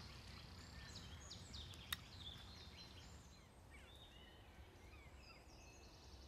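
Near silence with faint bird calls and chirps, and one sharp click about two seconds in.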